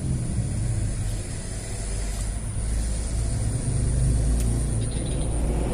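Low, steady rumble of a motor vehicle engine running nearby.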